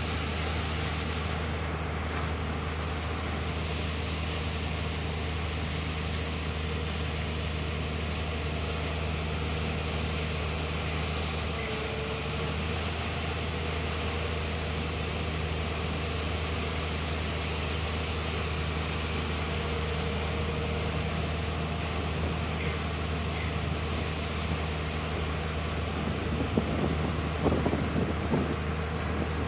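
Watermaster Classic IV amphibious dredger's diesel engine and dredge pump running steadily with a low drone while it pumps sludge out through its discharge pipe. A few brief louder crackles come near the end.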